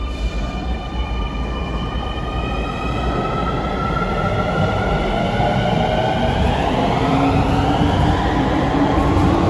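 Keio 9000 series electric train pulling away from a station platform: its motors give a whine of several tones that climb in pitch as it gathers speed. A rumble from the train grows louder beneath it.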